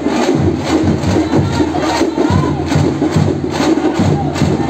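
Loud drumming in a quick, uneven beat of sharp strikes, with a crowd's voices shouting and talking underneath.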